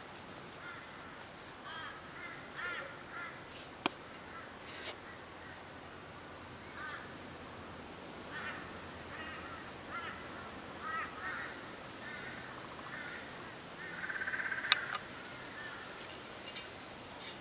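Birds calling over and over in short cawing calls, with a few sharp clicks, the loudest about three-quarters of the way in.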